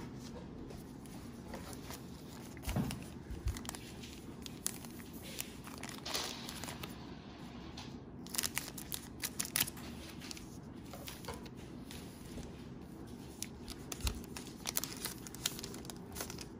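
Plastic wrapper of a Panini Prizm 2019-20 cello pack of trading cards being torn open and crinkled: irregular crackles and rustles, busiest in the middle and again near the end.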